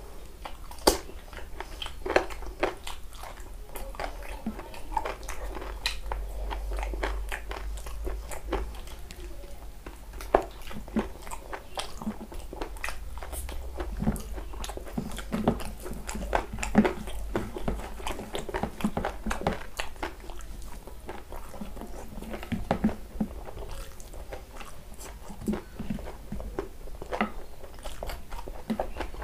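A man chewing and biting as he eats chicken and rice with his fingers, with many small, irregular mouth clicks.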